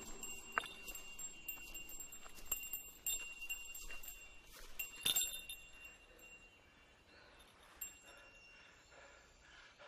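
A small metal bell of a Buddhist pilgrim tinkles, struck several times with its high ringing hanging on between strikes. The loudest strike comes about five seconds in, and the ringing fades over the last few seconds.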